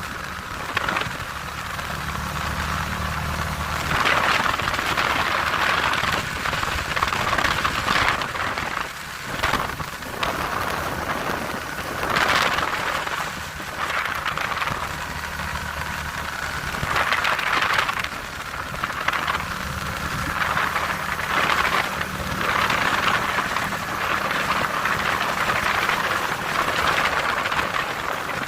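ATV engine running as the quad is ridden along, a steady low drone that shifts level a few times. Over it, a rushing noise swells and fades every few seconds.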